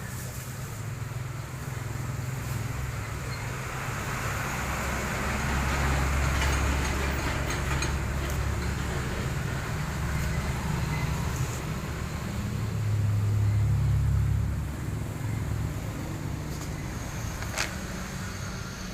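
Vertical pellet mill running under its motor: a steady low mechanical drone that swells twice as its load changes, with a single sharp click near the end.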